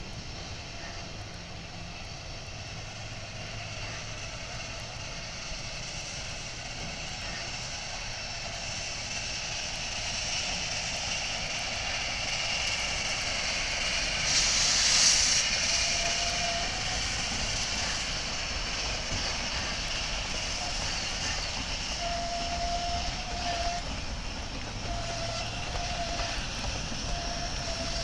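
Distant vehicle rumble that grows gradually louder, with a brief swell of hiss about halfway through.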